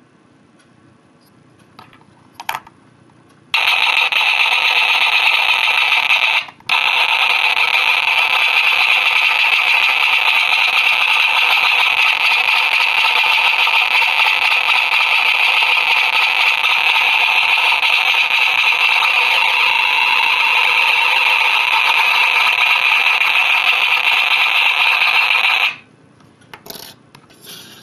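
ChipTrickPocket DIY chiptune synth, modulated by an XR-NoizBoxII, giving a loud, harsh, steady electronic noise-buzz for about twenty seconds. It breaks off briefly a few seconds in and stops abruptly near the end. A short blip comes before it and a few small clicks after.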